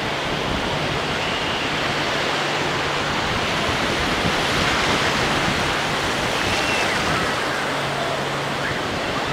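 Ocean surf washing up the beach: a steady rushing noise that swells a little in the middle.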